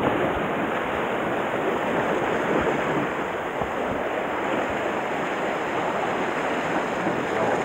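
Steady rushing of sea surf, mixed with wind, with no distinct strokes or pitched sounds.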